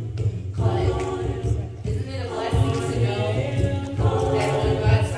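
A cappella gospel group of women singing together, several voices and no instruments, in phrases with short breaks between them.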